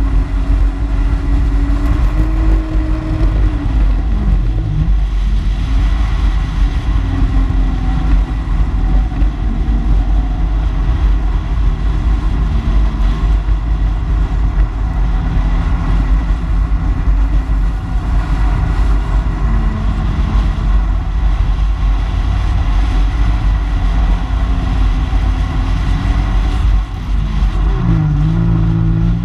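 Personal watercraft engine running at speed over water, with heavy wind rush on the microphone. The engine pitch dips and recovers about four seconds in, and again near the end as the throttle eases and opens.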